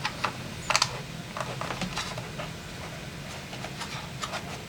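A few scattered key presses on a computer keyboard: a quick cluster of clicks near the start, then single clicks now and then.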